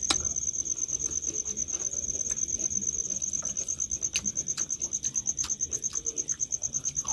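A cricket chirping in a high, steady trill that pulses rapidly and evenly, with scattered small clicks of people eating rice and curry by hand from steel plates; the sharpest click comes just after the start.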